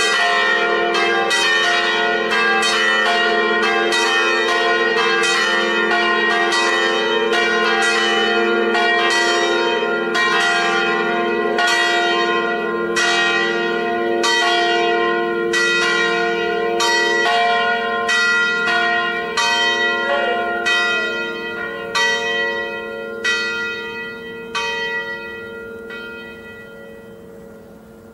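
Church bells of a brick belfry ringing a swinging peal, Treviso style: dense, overlapping strokes that thin out past halfway and stop a few seconds before the end. The bells' hum rings on and fades as the peal ends.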